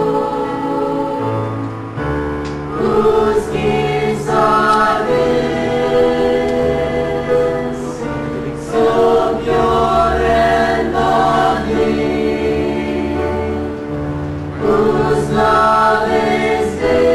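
Church choir singing in parts, over held low accompaniment notes that change about two seconds in and again near the end.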